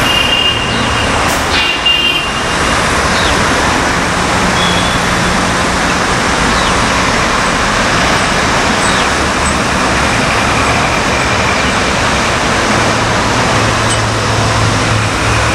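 Dense road traffic on a multi-lane city road: a steady hum of engines and tyres, with the low drone of heavier vehicles such as buses and trucks passing. Brief high tones sound twice in the first two seconds.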